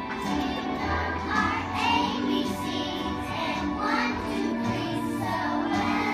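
A group of young children singing a song together with instrumental accompaniment.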